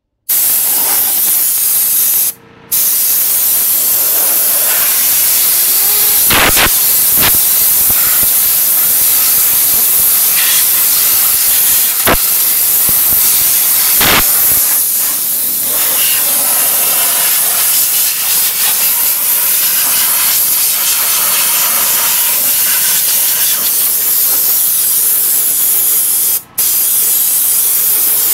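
Steady loud hiss of compressed air blowing accumulated dust out of an open desktop computer case, breaking off briefly twice.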